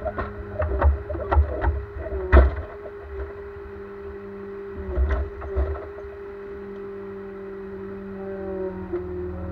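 Ponsse Elk forwarder running steadily with its hydraulic crane working. A series of wooden knocks and clunks comes as the grapple sets logs down on the truck's load, loudest about two seconds in, with another few about five seconds in. The machine's pitch shifts slightly near the end as the crane load changes.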